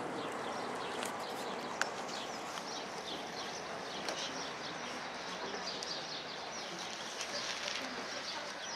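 Small birds chirping repeatedly over a steady outdoor background hiss, with a single sharp click about two seconds in.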